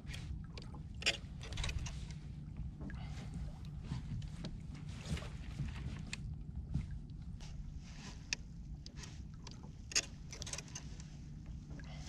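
Water slapping and splashing against a fishing kayak's hull over a steady low rumble, with scattered small knocks and clicks from the kayak and gear.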